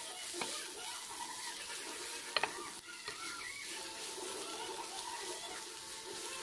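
Sliced bitter melon (ampalaya) sizzling in a frying pan as it is stirred with a spatula, with a few sharp clicks of the spatula against the pan, the loudest a quick double click about two and a half seconds in.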